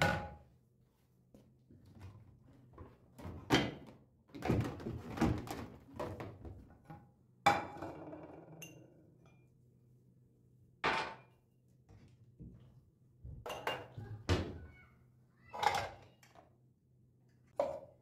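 Dishes being put away from a drying rack: a tray, drinking glasses and a frying pan picked up and set down in a string of separate clunks and clinks, one with a short ring about halfway through.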